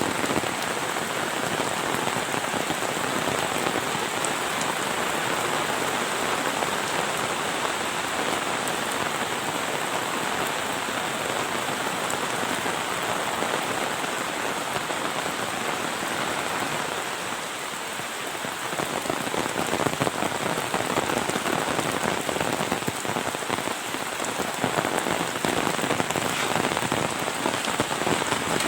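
Heavy monsoon rain falling steadily: a dense hiss of countless drops hitting the ground, with a brief slight lull about two-thirds of the way through.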